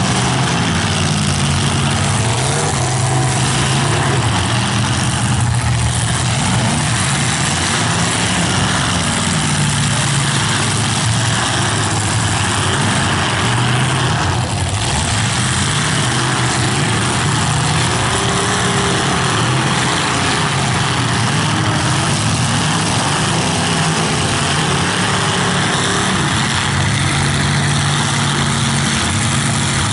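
Engines of several full-size demolition derby cars running and revving together, a loud, continuous racket whose pitch keeps rising and falling as the drivers push and ram.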